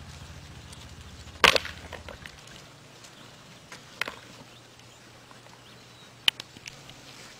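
Horns cracking together as two horned goats butt heads: three sharp knocks, the loudest about a second and a half in, then one about four seconds in and one about six seconds in, with a few lighter clicks between.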